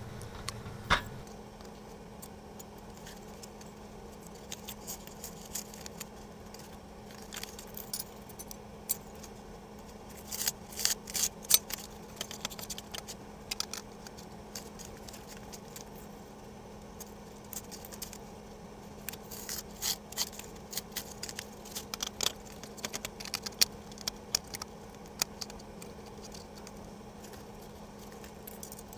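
Foam sheet and cardboard being handled, cut and fitted into a metal electrical box: scattered short scrapes and clicks, busiest about ten seconds in and again about twenty seconds in, over a faint steady hum.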